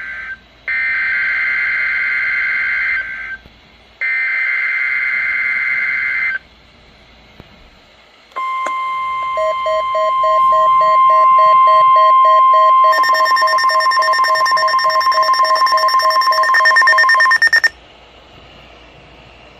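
NOAA Weather Radio Emergency Alert System test. First come three screeching SAME digital header bursts, each about two and a half seconds long. After a pause the steady 1050 Hz warning alarm tone sounds, with rapid electronic alarm beeping about three times a second over it, growing denser and shriller partway through. All of it cuts off suddenly shortly before the end.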